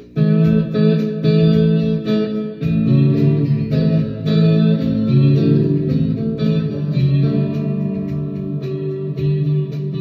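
Electric slide guitar: a salvaged Squier electric guitar with '57-62 Fender pickups played with a bottleneck slide. It comes in with a loud chord right at the start, then slides between sustained notes and chords.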